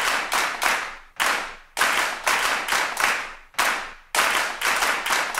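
Rhythmic hand clapping in short repeating groups with brief gaps between them, each clap trailing off in a short echo.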